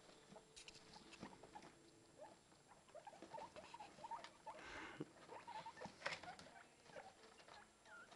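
Guinea pig mother and newborn pups moving about in their bedding: faint short squeaks among light pattering and rustling, busiest in the middle few seconds.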